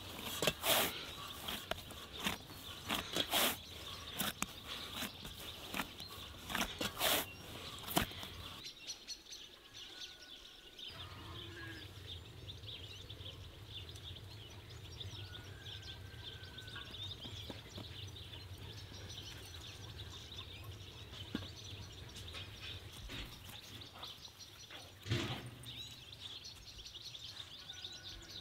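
Hands punching down and kneading a large mass of risen bread dough in an enamel bowl, a quick run of soft slaps and clicks for the first eight seconds or so. Then quiet outdoor ambience with a low steady hum, a few faint bird chirps and a single thump near the end.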